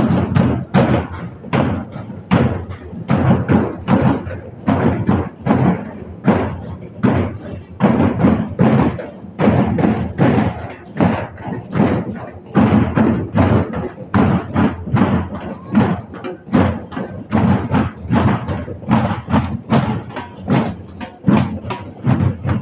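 A large group of Gondi dhol drums (double-headed drums with steel shells, beaten with sticks) playing together in a steady rhythm of deep strokes.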